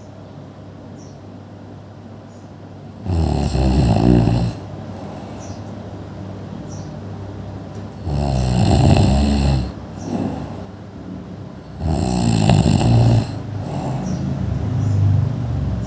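A person snoring: three long, loud snores about four to five seconds apart, each with a fluttering rattle, and softer breaths between them.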